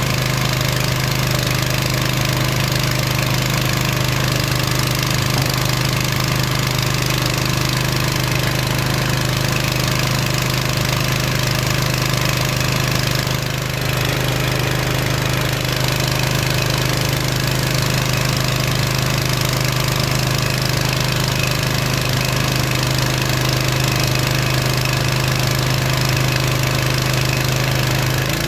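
Small engine of a floating gold dredge running steadily at a constant speed, driving the dredge's water pump. There is a brief dip in loudness about halfway through.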